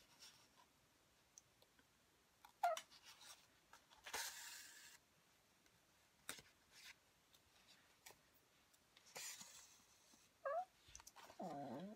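Faint whining cries from a pet, one short cry falling in pitch about three seconds in and a few more near the end, with quiet rustles of embroidery thread being drawn through pre-punched card in between.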